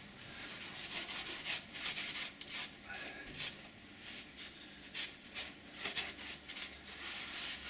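A cloth rag rubbing and wiping in quick, irregular strokes over the metal around a freshly tightened oil drain plug on an air compressor.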